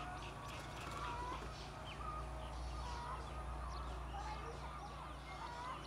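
Birds calling: short, bending calls repeated about once a second, with fainter high chirping and a steady low hum beneath.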